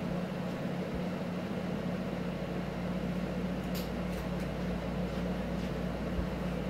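Steady low hum of room background noise from an unseen machine or appliance, with a few faint clicks about four seconds in.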